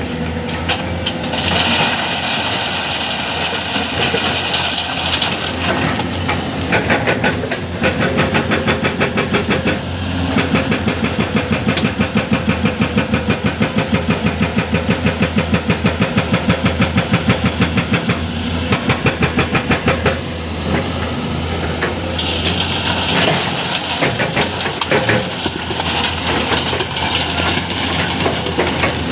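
Hydraulic breaker on a Komatsu PC210 excavator hammering rock in runs of fast, evenly spaced blows, about five a second, over the excavator's running diesel engine. The longest run goes from about ten to eighteen seconds in. Stretches of hiss come near the start and near the end.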